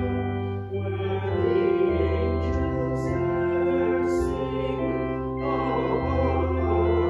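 Church organ playing sustained hymn chords, changing every second or so.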